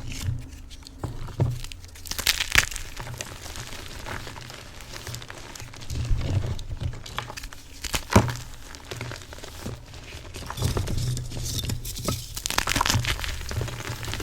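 Chunks of BSN gym chalk being crushed, crumbling and crunching in uneven bursts with several sharp cracks.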